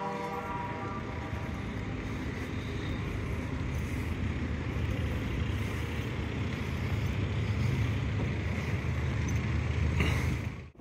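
Road vehicle: a heavy engine's low rumble grows slowly louder and stops abruptly near the end. It is preceded in the first second or so by a short horn-like tone.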